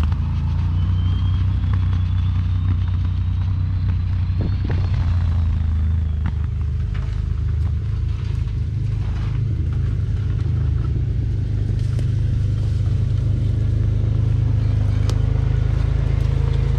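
Off-road 4x4 engine running at low revs while crawling over a dirt trail: a steady low rumble, with a few sharp clicks in the second half.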